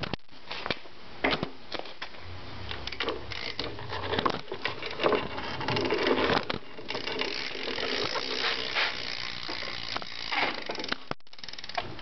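Rear hub of a GT Fly 2012 BMX bike clicking as the wheel spins freely: the freewheel's rapid ticking, louder in spells.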